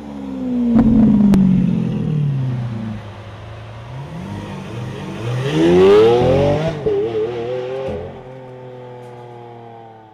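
Lamborghini Aventador SV's 6.5-litre V12 revving as the car pulls away. A loud rev falls in pitch about a second in, with a sharp crack. A second, rising run of revs ends in a gear change near seven seconds in, and the engine note then fades as the car drives off.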